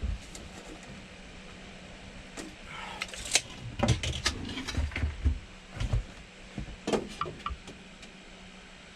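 Hand work on timber trim: an irregular run of sharp knocks and clatter, with a few dull thumps in the middle, over a steady low hum.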